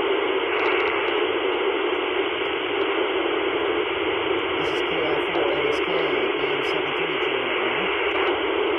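Icom IC-705 receiving the PO-101 satellite's FM downlink, with its loud, steady hiss of FM static. A faint voice comes through the noise about halfway through.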